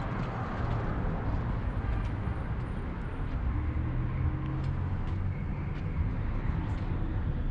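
Street ambience: a steady low rumble of city traffic, a little louder around the middle.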